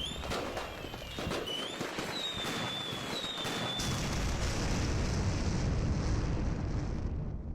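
Fireworks: several short whistles falling slightly in pitch over dense crackling, building into a heavy continuous barrage that cuts off suddenly near the end.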